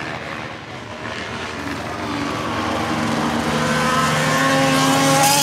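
Formula 1 car's 1.6-litre V6 turbo-hybrid engine accelerating, growing louder as it approaches, its pitch rising steadily. A burst of hiss comes in near the end.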